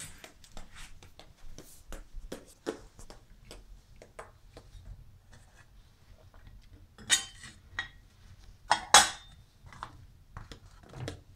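Dishes and utensils clinking and knocking on a stainless steel sink: a run of small clicks and taps, with two louder clatters about seven and nine seconds in.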